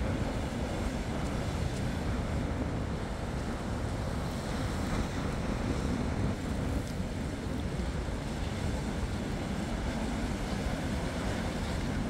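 Rough surf breaking steadily on a sandy beach, a continuous rushing wash of waves that swells and eases a little.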